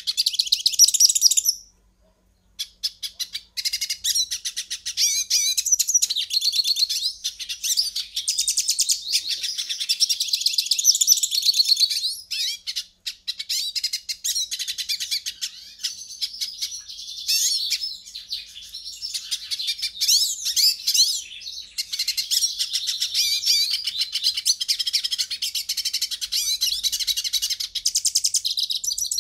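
European goldfinch singing: a long run of fast, liquid twittering and trills, broken by a short pause about two seconds in and a brief one near the middle.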